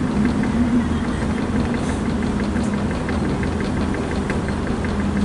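Diesel multiple unit's underfloor engine running with a steady hum, along with the rumble of the train running on the track, heard inside the carriage. A light, regular ticking rattle runs underneath.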